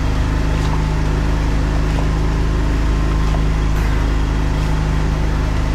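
Drain-jetting machine's engine running steadily at a constant pitch.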